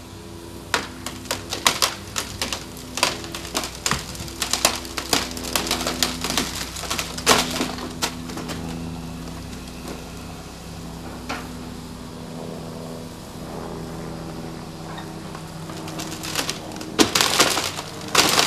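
Excavator's diesel engine running steadily while timber from the demolished building cracks, snaps and clatters. There is a run of sharp cracks through the first eight seconds and another dense burst near the end.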